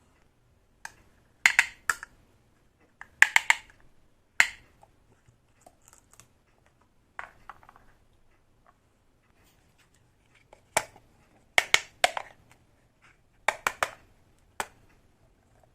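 Small plastic toy kitchen pieces clicking and tapping together as they are handled and set down. The sharp clicks come in short clusters every second or two, with quiet gaps between them.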